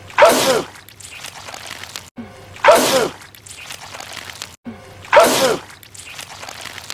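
A man sneezing loudly, the same sneeze clip repeated on a loop: three sneezes about two and a half seconds apart. Each is led in by a short rising sound and cut off abruptly before the next.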